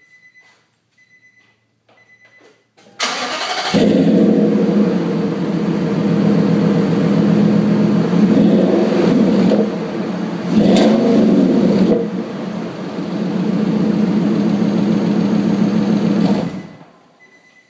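A 2008 Nissan Titan's 5.6-litre V8 cranks briefly about three seconds in and catches loud through dual Flowmaster Super 44 mufflers with the rear catalytic converters gutted. It idles and is revved twice, then is shut off near the end. Faint repeating beeps come before the start.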